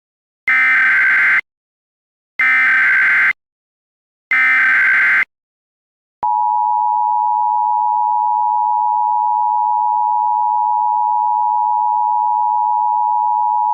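Emergency Alert System tones: three short bursts of SAME header data about two seconds apart, then the EAS two-tone attention signal starting about six seconds in and holding steady.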